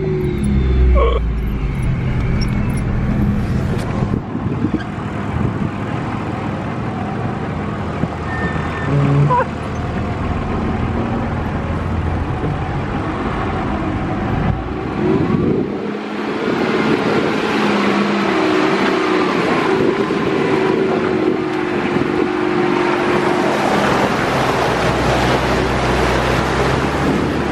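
Off-road 4x4 driving over a rough, muddy dirt track: engine running with knocks and rattles from the rough ground. About halfway through, a loud rushing noise of wind on the microphone and tyres on gravel takes over.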